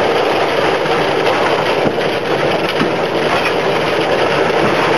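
Steady, loud noise of a Sentinel vertical-boiler steam locomotive heard from inside its cab, with no clear beat.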